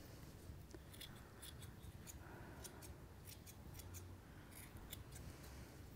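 Scissors snipping through the yarn of a pom-pom, trimming it into shape: faint, short, irregular snips, a few a second.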